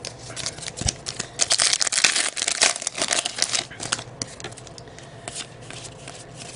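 Crinkling and tearing of a trading-card pack's wrapper as it is ripped open, densest about a second and a half in, then lighter rustling and clicking as the cards are handled.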